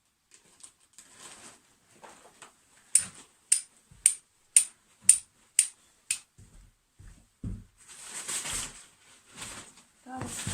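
Flint and steel: a steel striker scraped down a flint seven times, about two sharp strikes a second, throwing sparks onto charcloth to catch an ember. Light handling clicks come before the strikes and a short rustle follows them.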